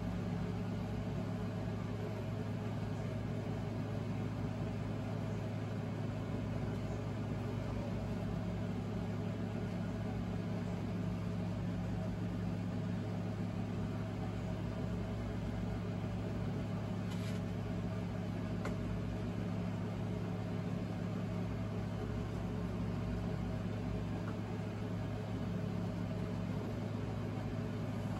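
Steady low electrical or mechanical hum with a faint hiss under it, unchanging throughout, and two faint ticks about two-thirds of the way through.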